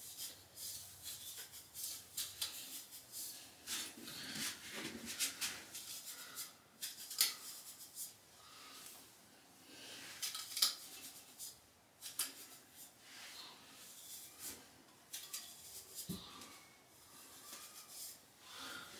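A wide-tooth hair pick raked again and again through a curly wig, making a series of short, irregular rustling strokes.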